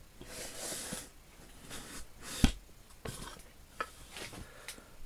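A brief rustle, then a few small clicks and knocks, the loudest a sharp knock about two and a half seconds in.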